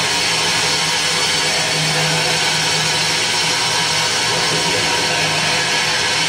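Loud, steady wall of harsh electronic noise from a live noise-music set played through amplifiers, with a low hum underneath.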